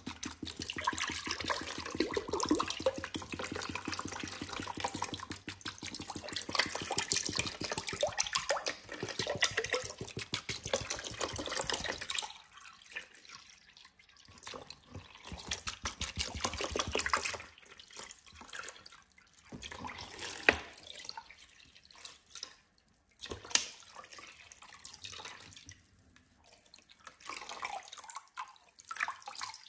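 Liquid poured from a large plastic bottle into a plastic tub, splashing over a rusty metal tin can and its glass inserts. It runs in one continuous pour for about the first twelve seconds, then comes in shorter splashing pours with pauses between them.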